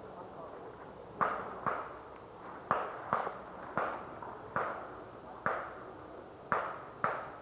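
Paintball markers firing: about nine sharp pops at uneven intervals, some in quick pairs, starting about a second in.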